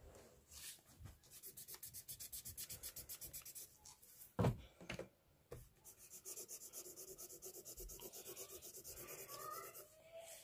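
Graphite pencil shading on paper: rapid, even back-and-forth strokes giving a faint scratchy rubbing, in two runs of a few seconds each. A single dull knock falls between them, about halfway through.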